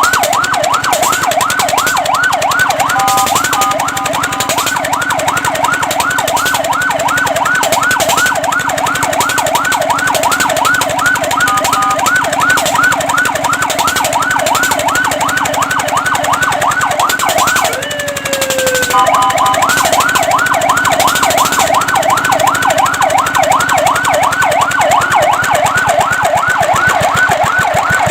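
Fire truck siren in a fast yelp, sweeping up and down in pitch several times a second. It breaks briefly a few times into a steady multi-tone blast, and once, about 18 s in, into a single slower falling sweep before the yelp resumes.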